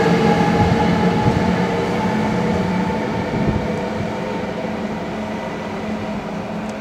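Eurostar Class 373 high-speed electric train pulling away, its steady electrical hum and wheel rumble fading as it recedes.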